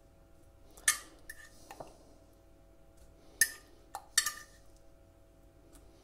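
A metal fork clinking against a ceramic dish as pieces of marinated fish are lifted out. There are three sharp clinks, about a second in, at three and a half seconds and just after four seconds, with fainter taps between them.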